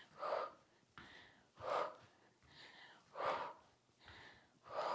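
A woman's heavy breathing from cardio exertion, close on a clip-on microphone: a strong exhale about every one and a half seconds in time with her steps, with fainter breaths between.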